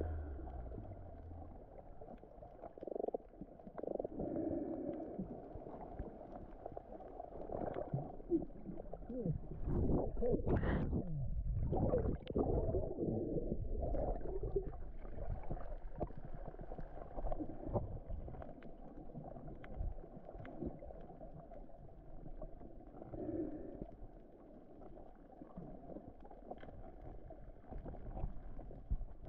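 Muffled underwater water noise, a low churning rumble with gurgling, heard through a camera's underwater housing while snorkelling; a louder, bubbly stretch comes about ten seconds in.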